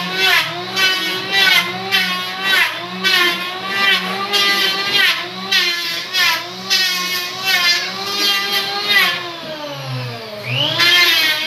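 Electric hand planer running and cutting along a wooden board. The motor whine dips and the cutting hiss swells about twice a second as the blades bite. Near the end the motor winds down, then spins back up.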